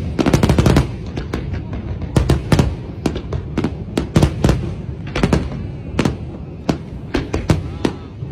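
Fireworks display: a dense volley of sharp bangs in the first second, then irregular single bangs every few tenths of a second, each trailing off into a low rumble.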